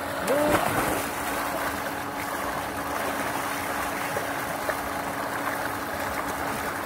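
Water gushing steadily from an irrigation well's outlet pipe into a round concrete tank, churning and splashing, with a steady low hum underneath. A man's voice calls out briefly near the start.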